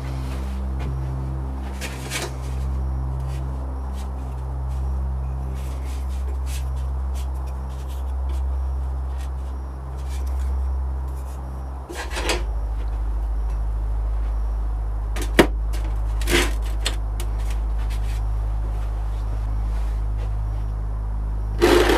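A steady low hum that shifts in tone about halfway through, with a few short knocks and clicks as a 3D-printed tile pattern and a sand-casting flask are handled and set down on the bench.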